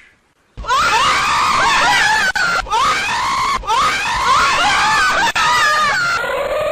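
A high-pitched screaming voice, wailing up and down in pitch with a few short breaks for breath, starting about half a second in after a brief silence. Near the end the pitch drops lower.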